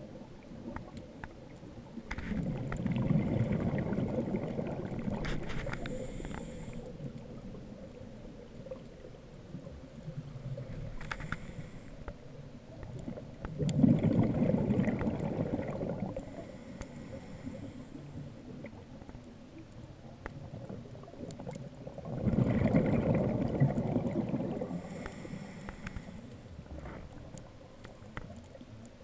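Scuba diver breathing out through a regulator underwater: three long rushes of exhaust bubbles, each lasting three to four seconds and about nine seconds apart, with quieter water noise in between.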